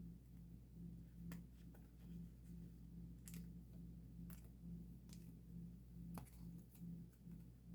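Faint, scattered clicks and rustles of photocards and plastic sleeves being handled, over a low hum that pulses about twice a second.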